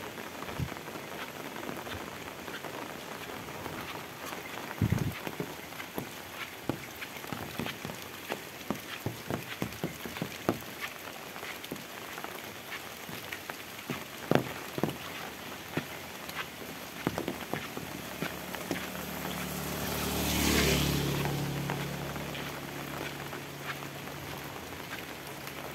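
Heavy rain falling steadily, with many sharp drop strikes close by. A motor vehicle passes near the end, its engine and tyres on the wet road swelling to a peak and fading away.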